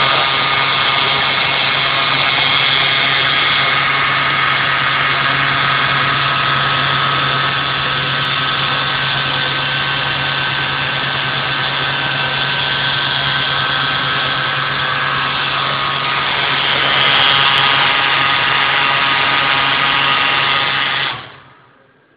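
Industrial double-head sewing machine running steadily with a constant hum, then shutting off abruptly near the end.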